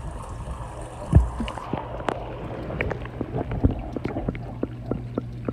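Camera microphone being dipped into pond water: a thump about a second in, then muffled underwater sound with a steady low hum and scattered sharp clicks.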